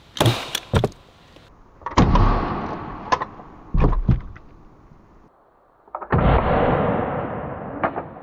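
Ramset powder-actuated nail gun firing a green .22 blank to drive a nail into soft body armor: a sharp bang about two seconds in with a long fading tail, and a second bang like it about six seconds in. A few sharp clicks come in the first second and between the bangs.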